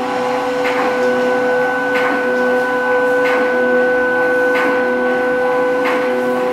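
Sound from a turntable art installation played through its speakers: two steady held tones over a dense drone, with a soft click repeating about every second and a third.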